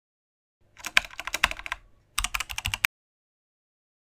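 Keyboard typing sound effect: a quick run of keystroke clicks starting about half a second in, a short gap, then a second run that cuts off abruptly about three seconds in.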